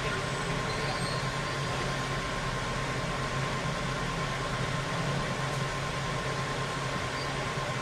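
Steady hiss of a small electric air blower running, with a faint constant whine and a low hum under it.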